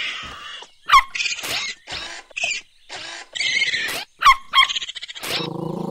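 Cartoon raccoons hissing and chittering in a string of short, sharp bursts, some with quick falling squeaks. A low, steady growl starts near the end.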